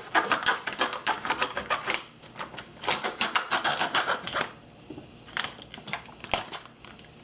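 Plastic meat packaging crinkling and rustling as the raw pork ribs are handled and pulled out: two stretches of rapid crackling, then a few faint clicks and rustles near the end.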